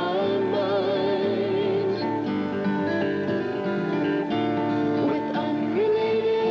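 Pop-folk song performed live: voices singing sustained notes with vibrato over guitar accompaniment.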